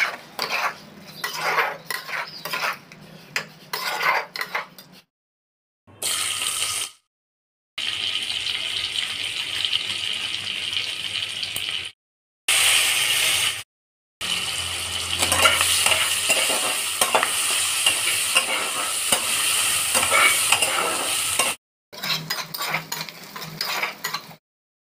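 Hot oil sizzling steadily in a metal kadhai as seeds and then sliced onions fry, in several clips broken by sudden cuts. At the start and again near the end, a spoon clicks and scrapes against the pan while stirring.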